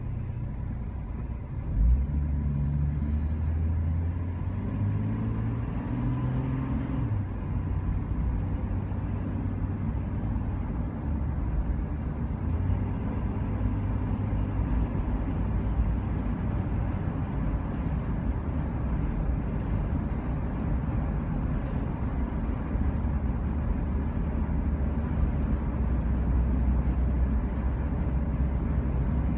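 Motor vehicle engine and road noise while driving: a steady low drone whose engine pitch climbs in steps for a few seconds after a sudden rise about two seconds in, as if accelerating through the gears, then settles into an even cruise.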